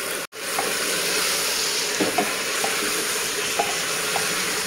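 Meat, onions and tomatoes sizzling in hot oil in a metal pressure cooker while being stirred, with a few light knocks of the spoon against the pot. There is a brief break near the start.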